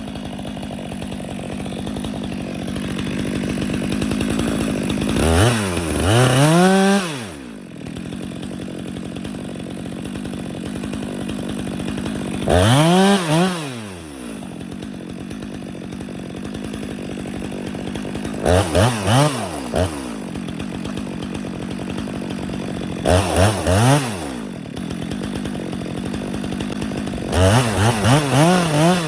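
Two-stroke chainsaw running, idling steadily between bursts of throttle. The engine revs up and falls back five times, the later bursts as quick repeated blips.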